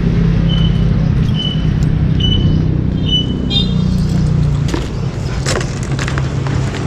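An engine idling with a steady low hum, with a short high beep repeating about once a second until about three seconds in. After that, keys rattle and a latch clicks several times as a motorcycle top box is unlocked.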